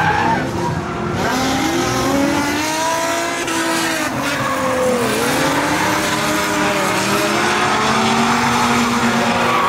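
Drift cars' engines revving hard as they slide through a corner, several engine notes rising and falling in pitch at once, over tyres screeching in smoke. About five seconds in, one engine note dips sharply and climbs again.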